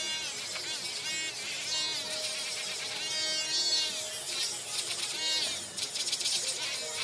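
Dremel rotary tool grinding a dog's nails: a small high-speed motor whining, its pitch dipping briefly again and again as the sanding drum is pressed to the nails. Background music plays underneath.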